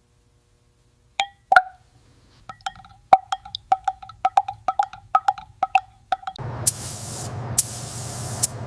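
A run of sharp, ringing metallic clicks, about three a second, then a steady spray hiss with a low hum beneath it, starting about six seconds in and louder in short bursts.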